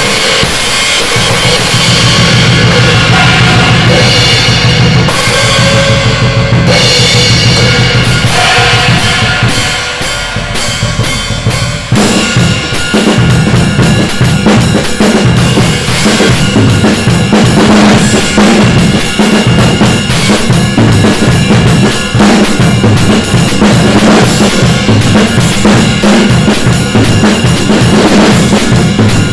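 Drum kit being played continuously: kick, snare and cymbals in dense, rapid strokes. The playing eases off briefly about ten seconds in, then picks up again as a fast, steady beat.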